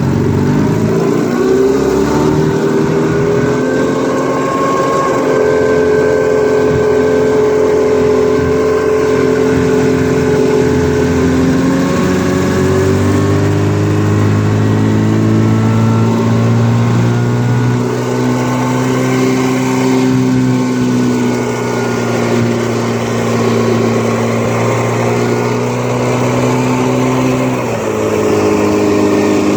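1954 Evinrude Super Fastwin 15 hp two-cylinder two-stroke outboard motor pushing a boat under way. It rises in pitch as the throttle opens at the start, then runs steadily, with a brief dip in revs near the end before picking back up.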